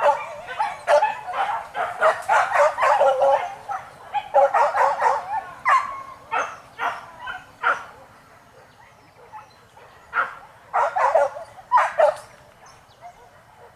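A pack of boar-hunting dogs barking and yelping in rapid, overlapping bursts. The barking is densest for the first six seconds, then thins to scattered barks with a short flurry near the end.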